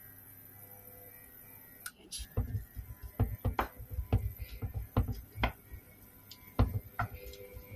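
A wooden spatula stirring onion pieces in a stainless steel frying pan, with irregular taps and knocks against the pan starting about two seconds in.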